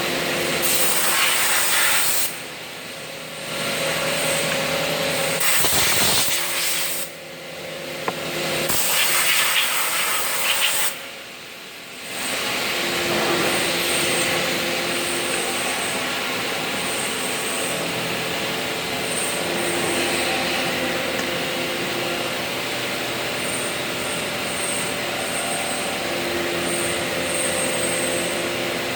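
CNC machine shop: lathes and machining centres running, with a steady hiss like coolant spray and faint steady machine tones. The noise drops away briefly three times in the first twelve seconds, then runs on evenly.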